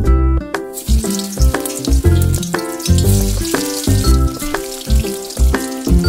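Upbeat background music with a steady beat, over the sizzle of whole potatoes frying in hot oil in a cast-iron kadai. The sizzle starts about a second in.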